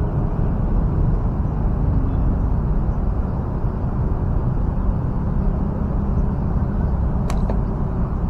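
Steady low outdoor rumble with one sharp snap about seven seconds in.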